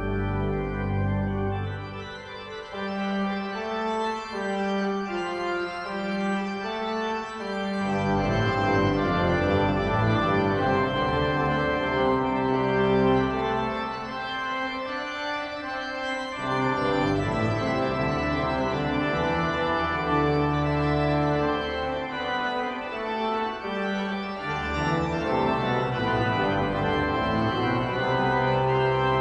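Pipe organ of St Edmundsbury Cathedral playing sustained full chords over a deep pedal bass. The bass drops out for a few seconds near the start and returns with a fuller, louder chord.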